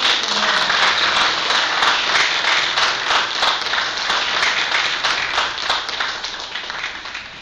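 An audience applauding a speech that has just ended: many hands clapping, loudest at first and slowly dying down.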